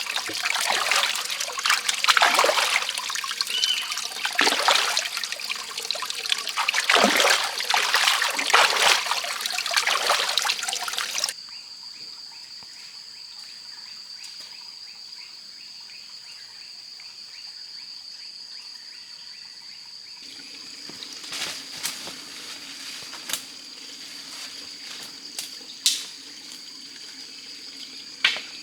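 Water trickling and splashing loudly and unevenly, which stops suddenly about eleven seconds in. After that comes a quiet background with a steady high-pitched drone, a low hum joining later and a few short clicks near the end.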